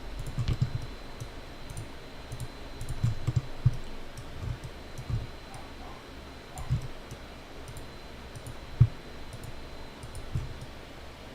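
Computer mouse clicking at irregular intervals as points are placed along a splint margin in dental CAD software, with a few soft low thumps, the loudest about nine seconds in. A faint steady high tone runs underneath.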